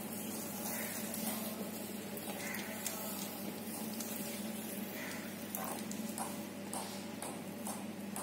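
Room tone: a steady low hum under an even hiss, with a few faint clicks in the second half.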